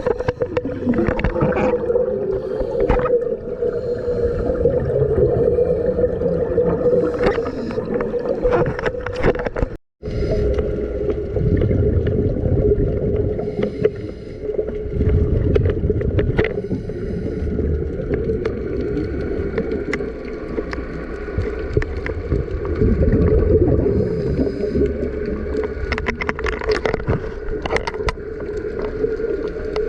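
Underwater sound from a dive recording: a steady hum with bubbling, gurgling and scattered clicks, cut by a brief dropout about ten seconds in.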